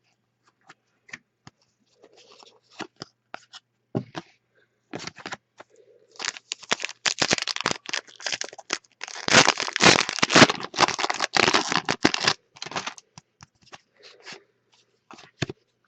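Paper and foil handling from a trading-card break: scattered light clicks and rustles, then about seven seconds of dense crinkling and tearing, as of a card pack wrapper being torn open, settling back to light rustles near the end.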